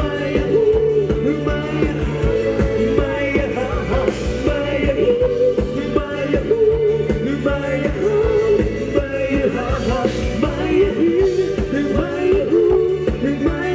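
Live band playing Thai ramwong dance music: a steady drum beat under a wavering lead melody line.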